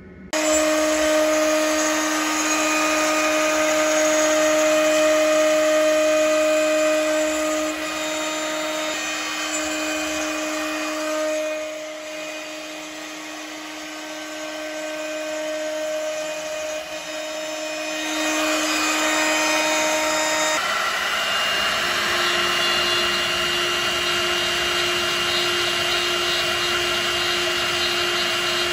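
CNC router spindle whining at a steady high pitch while an end mill machines aluminium. About two-thirds of the way through, the whine steps up slightly in pitch and the cutting noise gets louder and harsher.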